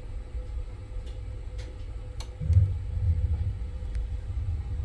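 Faint clicks from a gas water heater's control knob being turned from pilot to on. About two and a half seconds in, a low rumble swells up as the main gas burner lights.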